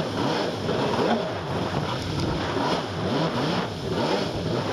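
Yamaha SuperJet stand-up jet ski engine running close by, its pitch rising and falling over and over, about twice a second.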